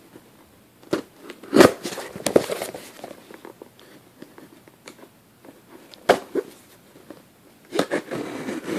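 A mailed package being opened by hand: rustling, crackling and tearing of the packaging in short spells, loudest about a second and a half in, with more near six seconds and near the end.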